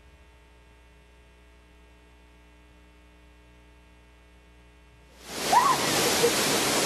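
A faint steady electrical hum, then about five seconds in the loud, steady rush of a waterfall comes in abruptly.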